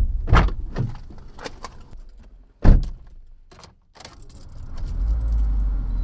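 Car keys jangling and clicking, then a car door shutting with a heavy thud about two and a half seconds in. Near the end the car's engine starts and settles into a steady low hum.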